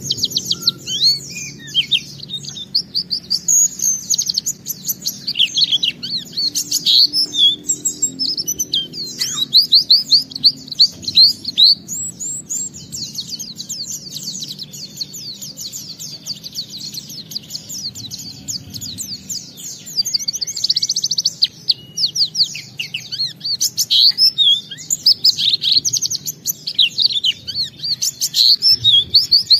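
White-eye (pleci) singing a long, fast, nearly unbroken song of rapid high chirps and twitters. The song is packed with imitated phrases of other birds' songs, the full 'ngalas' song that keepers prize.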